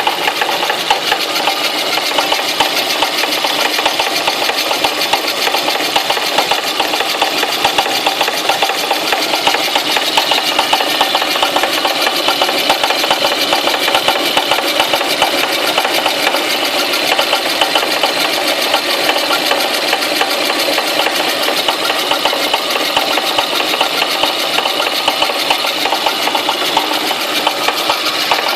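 Lada 2110 engine running with a rapid, steady knocking from the alternator drive pulley.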